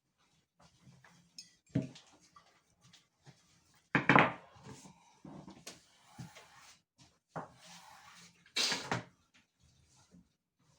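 Irregular knocks and clatter of objects being handled and set down, loudest about four seconds in, with faint rustling between.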